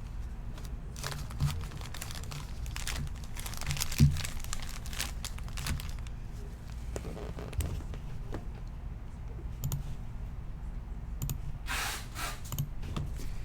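Plastic and foil trading-card packaging crinkling and tearing as packs are handled and opened, in irregular crackles with a sharp knock about four seconds in and a denser bout of crinkling near the end.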